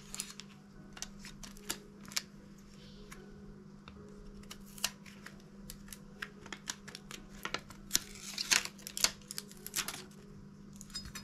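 Irregular small clicks, taps and crackles of heat-resistant tape and sublimation paper being peeled off a pressed metal bookmark and the blank being handled, over a steady low hum.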